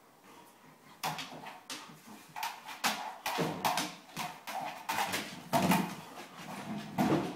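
A dog pushing a 14-inch Push-n-Play ball with its nose across a hardwood floor: after a quiet first second, a run of irregular knocks and scuffs as the ball bumps and rolls, mixed with the dog's claws clicking on the wood.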